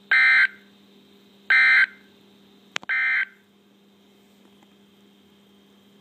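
Emergency Alert System end-of-message data tones: three short, harsh, buzzing bursts about a second apart, closing the flash flood warning broadcast. A sharp click comes just before the third burst, and a steady low hum runs underneath.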